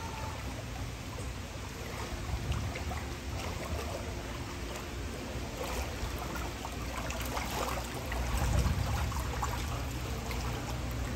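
Steady trickling rush of water around a ride boat drifting along its water channel, over a low rumble.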